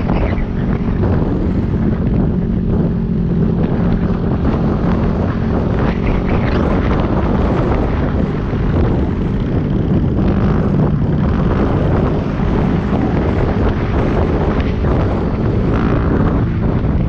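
Wind noise buffeting the microphone over the steady drone of a Yamaha WR250X's single-cylinder engine cruising at road speed.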